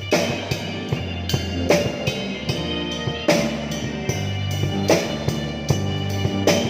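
Music with a drum kit playing a steady beat over a sustained bass line.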